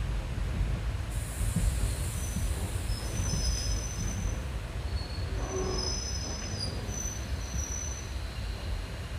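Passenger train heard from on board, running with a steady low rumble of wheels on rail, while thin high-pitched wheel squeals come and go several times in the middle of the stretch.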